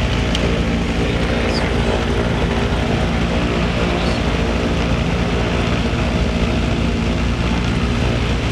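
The twin six-cylinder Continental IO-520 engines of a Cessna 310R running steadily with propellers turning, a constant even drone heard from inside the cabin.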